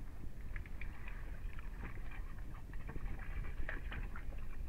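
Water lapping and slapping against the hull of a small drifting fishing boat, many small irregular splashes over a steady low rumble.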